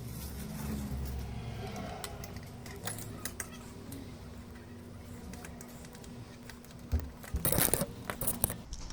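Small hard objects handled on a workbench: scattered light clicks, then a louder burst of clicking and rattling about seven seconds in, over a low steady hum.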